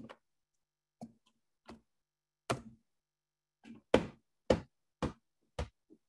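A series of short, sharp taps, about nine in all: scattered ones at first, then four louder ones about half a second apart in the second half.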